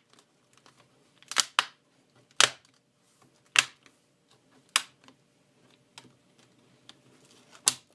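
Plastic display bezel of an HP Pavilion DV6 laptop snapping onto the screen lid, its clips engaging with sharp clicks: six snaps, roughly a second apart, two close together about a second and a half in.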